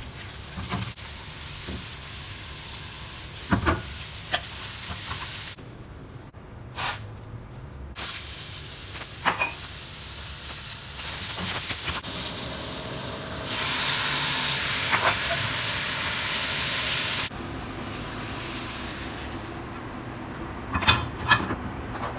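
Onion and carrot frying in a pan, sizzling steadily, with a few sharp knocks of a utensil against the pan as they are stirred. The sizzle changes level abruptly several times.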